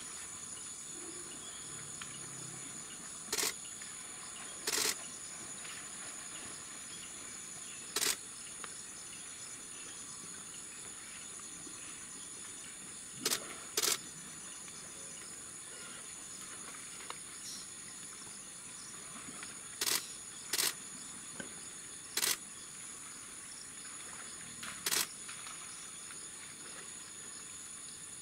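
Steady high-pitched insect chorus of rainforest crickets or cicadas. About nine short, sharp clicks cut through it at irregular intervals, some in close pairs.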